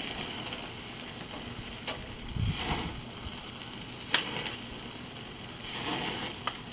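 Bacon-wrapped pork loin sizzling steadily on the grate of a charcoal offset smoker. A thump comes a little over two seconds in, and a few sharp clicks follow, the loudest about four seconds in, as tongs and a bowl are handled.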